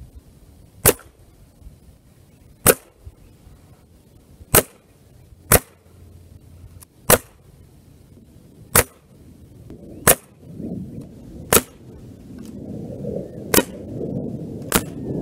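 Beeman Commander pre-charged pneumatic air rifle firing: about ten sharp cracks, one every second or two. A low rumbling noise builds up in the last few seconds.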